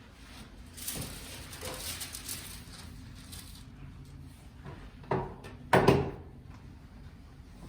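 A patient getting onto a chiropractic knee-chest table: rustling for a second or two, then two knocks of the table a little under a second apart, the second the louder.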